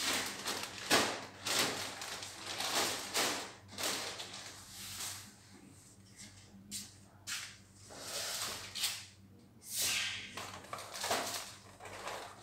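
Grocery packaging and plastic bags being handled and rustled, in irregular bursts of crinkling as items are picked up and moved around.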